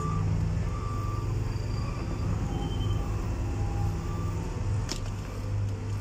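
Diesel engines of a working excavator and a dump truck running steadily with a low rumble, with short faint beeps now and then. A single sharp knock comes about five seconds in.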